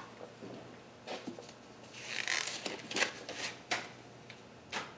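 Soft rustling and scraping with a few light clicks, a person handling things up close; the loudest rustle comes about two seconds in, with a sharp click near the end.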